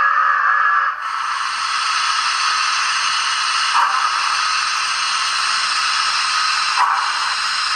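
Sound module of a Roco BR 10 002 steam locomotive model playing through its small speaker: a whistle blast that stops about a second in, then a steady hiss of escaping steam, briefly dipping twice.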